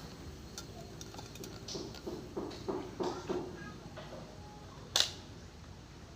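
Scattered light clicks and knocks of objects being handled, with a sharp, louder click about five seconds in.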